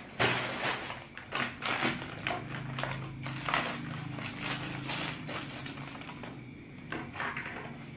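Plastic snack wrapper crinkling and rustling in irregular bursts as a small cracker packet is handled and cut open with scissors.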